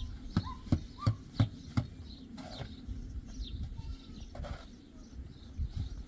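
Five sharp knocks in a steady rhythm, about three a second, in the first two seconds, like blows of a tool on wood or stone. Small birds chirp in short rising notes.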